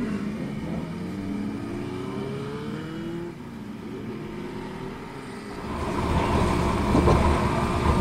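Group of motorcycles pulling away one after another, their engines revving and rising in pitch as they ride off. About two-thirds of the way through, a closer, louder steady low rumble takes over as the recording motorcycle gets under way.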